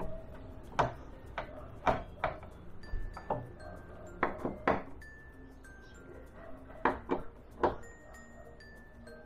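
Screwdriver, screws and plastic-and-metal wall-mount parts being handled and screwed onto the back of a flat-screen TV: about a dozen sharp, irregular clicks and clinks, over faint background music.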